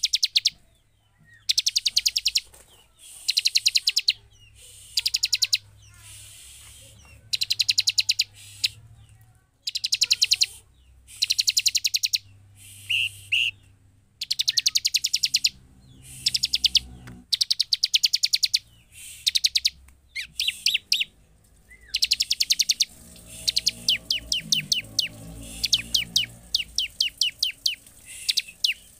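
Bar-winged prinia (ciblek) calling: repeated high, dry, rapid trills about a second long with short gaps between them, turning to a faster run of separate sharp notes in the last few seconds.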